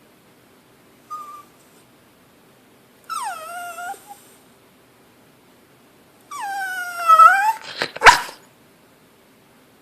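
A dog whining to beg for food: a brief faint whimper, then two high whines that slide down in pitch, the second turning up at its end, followed by one short sharp bark, the loudest sound.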